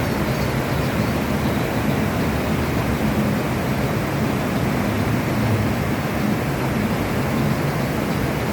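Steady, unbroken rushing noise at an even level, heaviest in the low range.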